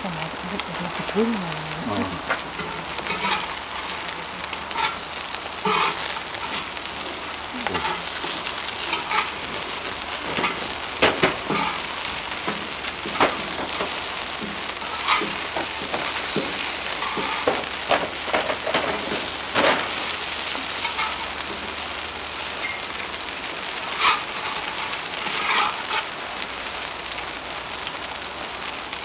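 Shredded pumpkin pancakes sizzling in oil on a cast-iron pot-lid griddle (sotttukkeong), a steady frying hiss. Frequent sharp clicks and scrapes come from metal and wooden spatulas against the iron as the pancakes are pressed and turned.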